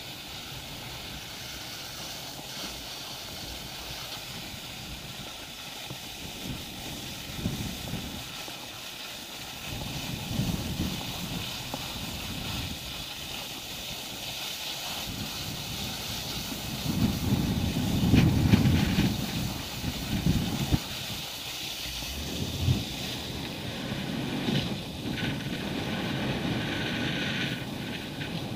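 Skis sliding on groomed snow with a steady hiss, while wind buffets the microphone in low rumbling gusts, loudest a little past the middle.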